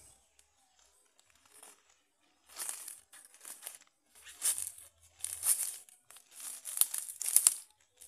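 Footsteps crunching through dry leaf litter and brushing through undergrowth, about one step a second, getting louder as the walker comes close.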